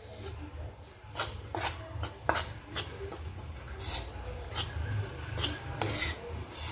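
Steel spoon scraping and stirring coarse wheat and bajra flour as it roasts in ghee in a metal pan, in repeated strokes about two a second, over a steady low hum.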